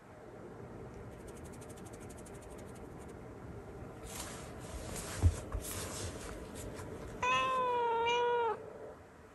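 A black domestic cat gives one long, wavering meow about seven seconds in, asking to play. Before it come rustling handling noises and a single sharp thump, the loudest sound.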